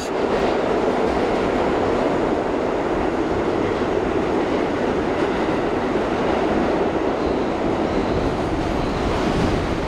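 New York City subway car (C line) running, heard from inside the car: a loud, steady noise of the moving train with no breaks.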